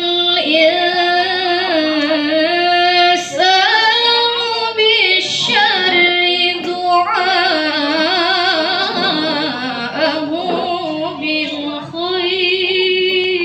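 A woman's solo voice singing unaccompanied in long, ornamented held notes with vibrato, in phrases of a few seconds broken by short breaths.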